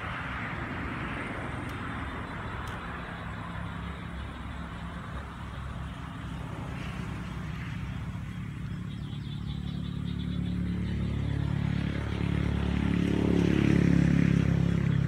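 A motor vehicle's engine running with a low, steady rumble, getting steadily louder over the second half as it comes nearer, with its hum loudest near the end.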